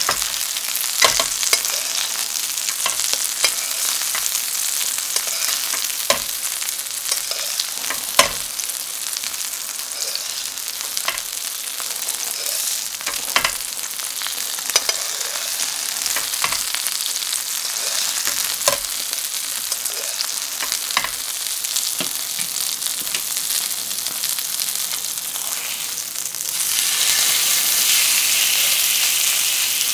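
Chicken breasts frying in hot oil in a pan: a steady sizzle with scattered sharp clicks and pops. Near the end the sizzle grows louder as a breast is turned over with tongs.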